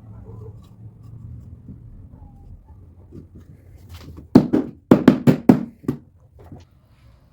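Sharp knocks on wood: a single blow, then about five in quick succession and a fainter one after, like a tool striking a wooden workpiece.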